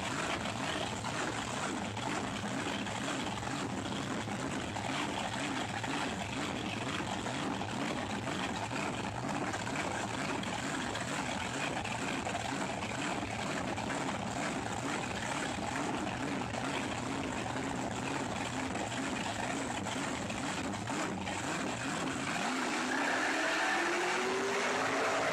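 Racing car engines running steadily with a dense mechanical rumble; near the end an engine's pitch rises as it speeds up.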